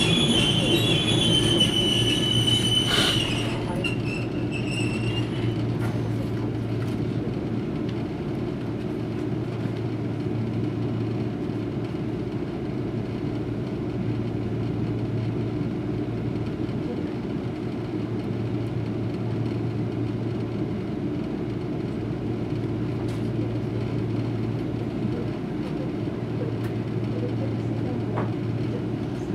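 Toyohashi Railway 3500-series tram's wheels squealing on the rails as it creeps slowly forward, the squeal fading out about three seconds in. Then the stopped tram gives a steady low hum that swells and eases in stretches, heard from inside the car.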